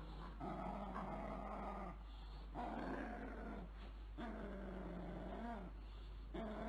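Beagle growling in play while tugging on a small toy: four long, drawn-out pitched growls with short pauses between them, the pitch bending at the end of each.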